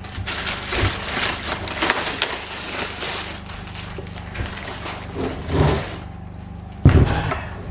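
Packaging being handled and pulled apart, with irregular rustling and scraping. There is a heavy thump near the end.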